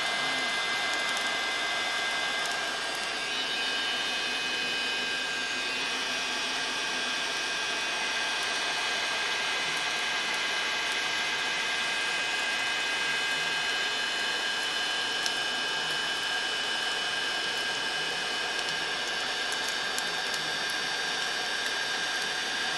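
A 1,500-watt Mastercraft heat gun running steadily, its fan blowing a constant rush of hot air with a steady high whine.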